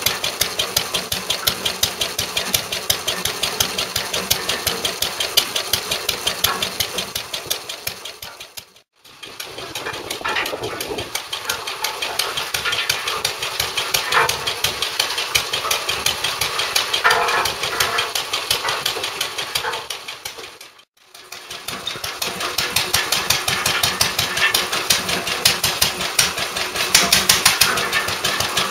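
Single-cylinder Lister D engine on a 1946 Parker cement mixer running steadily after its rebuild, with a fast, even beat of firing strokes. The sound drops out briefly twice, about nine and twenty-one seconds in.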